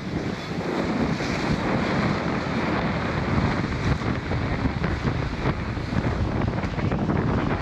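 Wind buffeting the microphone aboard a sailing schooner, over a steady wash of sea water.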